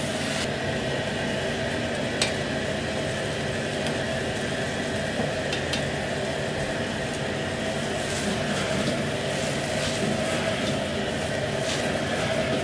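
Vegetables sizzling as they are stir-fried in a wok over a steadily running gas wok burner, with a steel ladle scraping the wok and tapping against it a few times.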